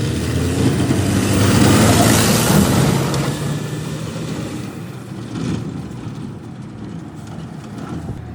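Heavy diesel earthmoving machinery working under load. It swells to its loudest with a rushing noise about two seconds in, then eases off and quietens.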